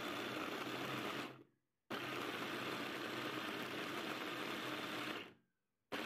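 Electric blender with a chopper bowl, its motor running in pulses while chopping raw potatoes. It runs for about a second, winds down, starts again for about three and a half seconds, winds down, and starts once more near the end.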